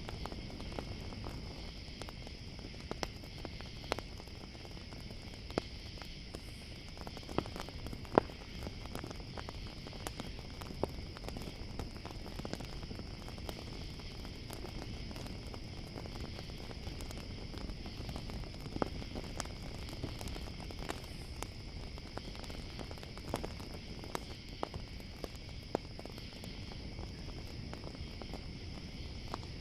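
A campfire crackling, with many sharp pops at irregular intervals and a low rumble of burning. Under it runs a steady chorus of night insects such as crickets.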